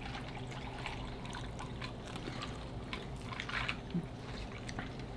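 A drink poured from a plastic bottle into a cup: a thin, steady pouring trickle with scattered small clicks and drips.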